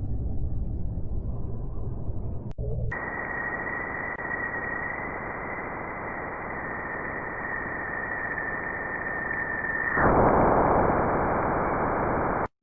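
Spacecraft recordings of electromagnetic signals from space converted to sound. A low rumbling noise cuts suddenly, about three seconds in, to a steady static hiss with a single steady whistling tone over it. Near the end the tone stops and the hiss grows louder, then cuts off sharply.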